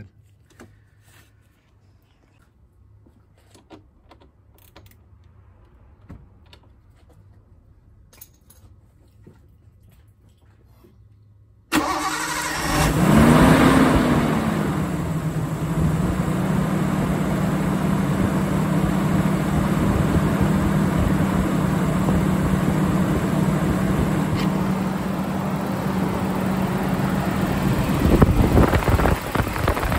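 Faint scattered clicks for about twelve seconds. Then a Nissan RB20DET turbocharged straight-six starts, flares briefly and settles into a steady idle, now running with a newly installed high-output alternator.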